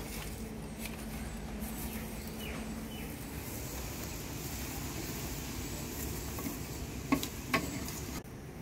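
Small hand tools and fingers working potting soil in clay pots: faint scraping and ticks over a steady hiss, with two sharp taps about seven seconds in.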